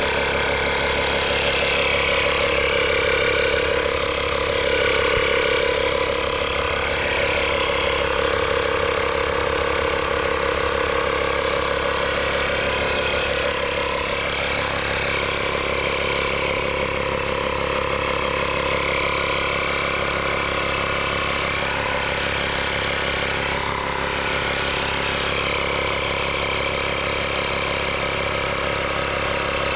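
Air compressor running steadily while it inflates a motorcycle tire, over-filling it to seat the bead on the rim.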